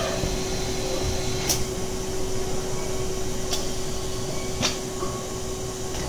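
Catalytic-converter shell CNC servo spinning and reducing machine running with a steady hum. Three sharp clicks come from its tooling and loading slide as they move into position.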